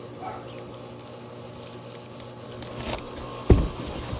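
Light scraping and tapping from handling a pool pump motor, with one loud, dull knock about three and a half seconds in, over a steady low hum.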